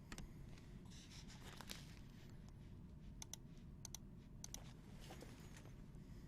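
Faint clicks and rustling of trading cards being handled, with a scattering of light ticks.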